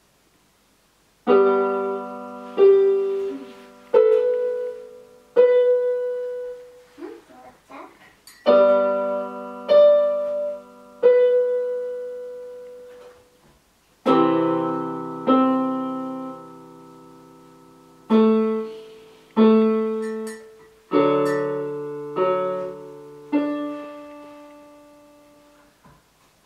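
Slow piano music: chords struck one at a time, roughly every second or two, each left to ring and fade, with a brief pause about halfway through.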